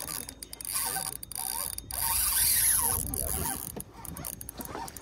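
Fishing reel's drag giving line as a hooked redfish makes a fast run.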